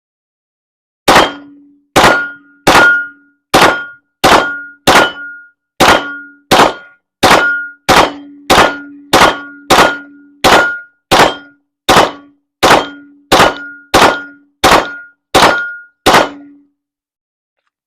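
A 9mm Glock 17 pistol fired in a steady string of about twenty shots, roughly one every 0.7 seconds. Each shot is followed by a short ringing clang from the steel target being hit.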